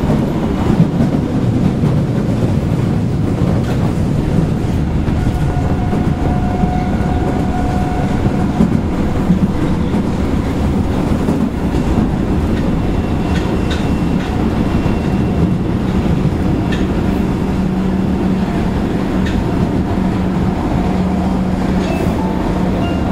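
Osaka Midosuji Line 10 series subway train running, a steady rumble of wheels on rail with some clickety-clack. Faint thin motor tones come and go, and a rising whine starts near the end.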